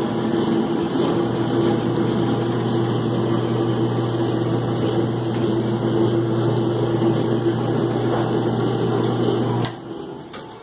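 Vicente Terra etching press running under motor drive: a steady hum as the bed carries the felt blankets under the steel roller. The hum cuts off suddenly near the end as the press stops.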